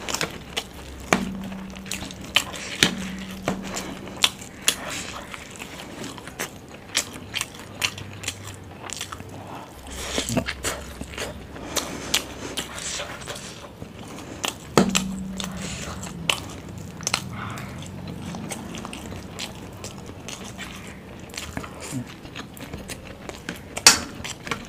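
Close-up eating sounds: chewing and wet mouth noises, with sharp clicks of a metal fork scraping and tapping on steel plates.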